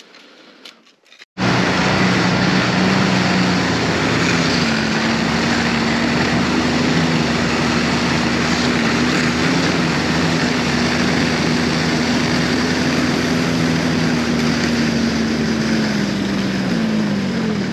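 Snowmobile engine running at a steady pace, coming in suddenly about a second and a half in; its pitch falls near the end as it slows down.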